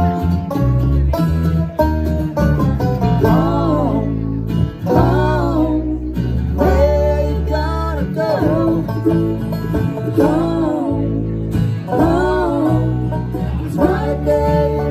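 Live bluegrass band playing, with banjo, mandolin, acoustic guitar and electric bass. A voice starts singing over the band about three and a half seconds in.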